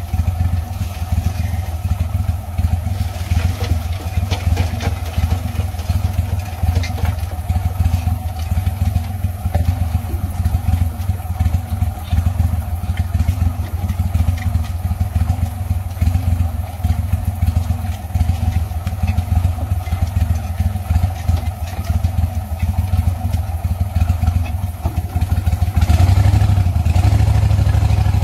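Boat motor idling steadily with a regular low pulse, then revving up and running harder near the end.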